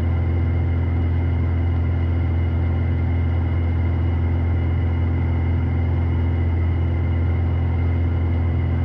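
Steady drone of a Piper PA-46 Malibu's piston engine and propeller in flight, heard from the cockpit: an even low hum with a faint constant whine above it.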